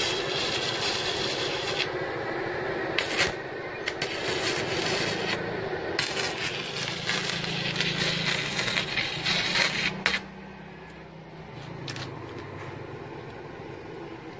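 MIG welding arc crackling steadily as wire is fed from a MultiPro Expert 450W inverter welder, with a few sharp pops. The arc stops about ten seconds in, leaving a quieter steady hum.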